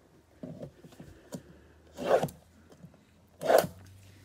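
Cardboard trading-card blaster boxes being handled and slid against one another, with two short scrapes about two and three and a half seconds in.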